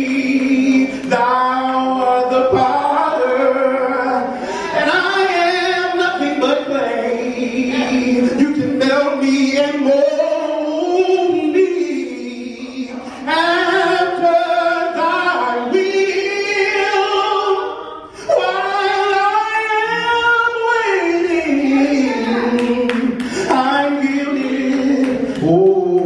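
A man singing unaccompanied into a handheld microphone, in long held notes that bend and slide in pitch, phrase after phrase with brief breaks between them.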